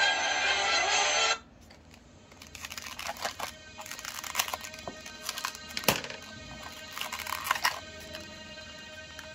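Loud music that cuts off suddenly about a second and a half in, then the crackling and clicking of a plastic blister pack being handled, with faint music underneath.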